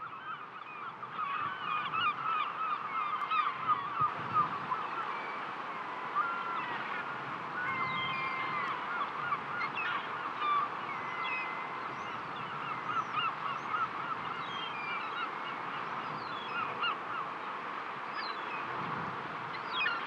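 A large flock of birds calling continuously in a dense, overlapping chorus of short honking and chattering calls, over a steady wash of sea on the rocks below.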